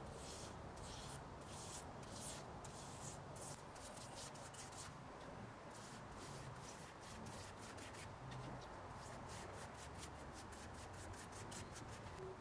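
Bristle paintbrush stroking finish onto a turned wooden vase: soft, rapid scratchy brush strokes, one after another, quickening to about three or four strokes a second in the last few seconds.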